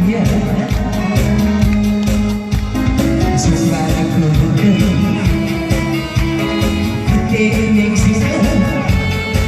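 Singing over a band backing track with a steady beat, with long held notes.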